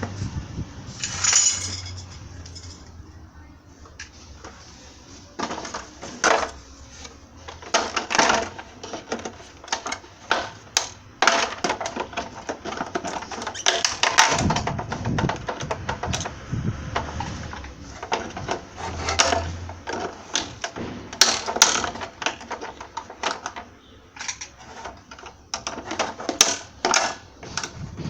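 Irregular clattering and knocking of hard objects being handled, with short stretches of low hum now and then.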